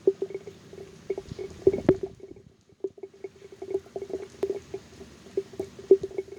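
Raindrops striking a phone, each drop giving a short plink at the same pitch. They land irregularly, several a second, with a brief lull just after two seconds in.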